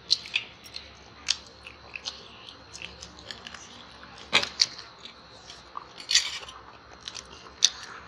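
Children chewing and biting fried chicken and spicy instant noodles, heard as irregular wet mouth smacks and sharp clicks, with a few louder smacks scattered through.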